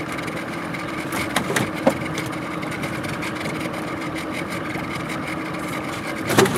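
Small outboard motor idling steadily on a jon boat, with a light knock about two seconds in and a louder clatter starting just at the end.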